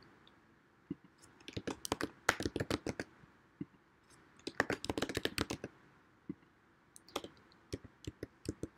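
Computer keyboard typing in three short runs of keystrokes with pauses between them.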